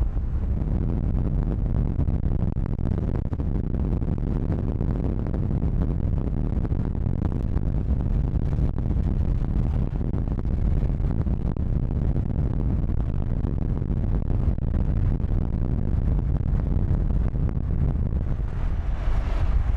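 Steady low rumble of a moving car's road and wind noise, even throughout, with no engine pitch or motor whine standing out.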